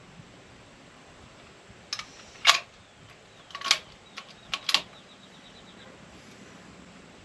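Sharp metallic clacks of a scoped rifle's bolt being worked by hand: about six clicks between two and five seconds in, the loudest about two and a half seconds in.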